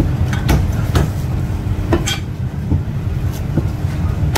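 Cleaver chopping through a crisp-skinned roast goose onto a wooden chopping block: sharp, unevenly spaced chops, about two a second, over a steady low rumble and hum.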